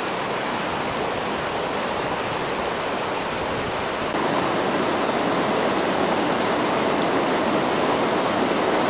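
Whitewater river rapids rushing over boulders: a steady, dense rush of water that steps up louder about four seconds in.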